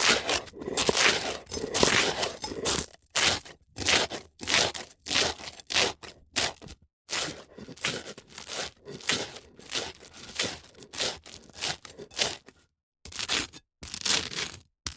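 Crisp toast crunching and scraping in a quick series of short, rough strokes, about two a second, broken by brief pauses.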